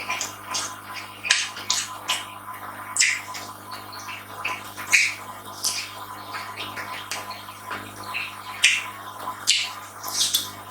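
Close-miked eating sounds: irregular wet chewing smacks and crunches, one or two a second, over a faint steady electrical hum.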